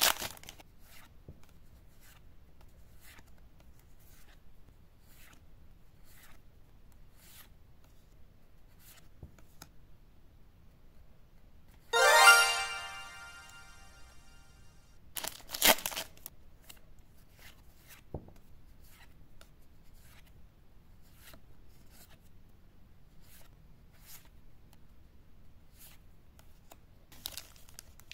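Foil booster-pack wrapper tearing right at the start, then the soft clicks of trading cards being slid off the stack one by one. A loud ringing musical sting cuts in about twelve seconds in and fades over a second or so, and a short crinkling rustle follows about sixteen seconds in.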